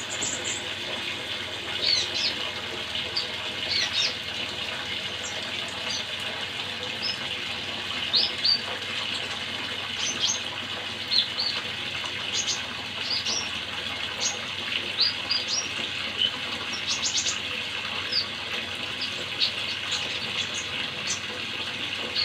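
A small songbird chirping in many short, high notes at irregular intervals over a steady sound of running water.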